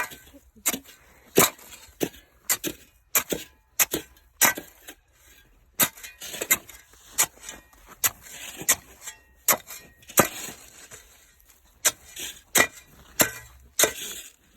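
Ice crust over snow cracking and crunching in sharp, irregular snaps, two or three a second.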